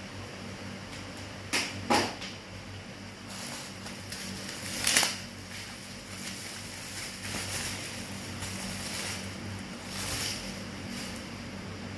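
Handling noises: a few short clicks or knocks, the loudest about five seconds in, and some soft rustling, over a steady hum of a fan or air conditioner.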